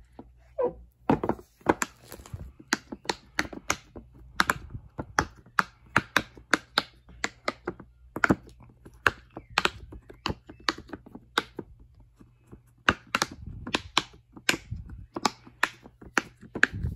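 Silicone push-pop fidget toy being popped bubble by bubble: a steady, irregular run of short sharp pops, about three a second.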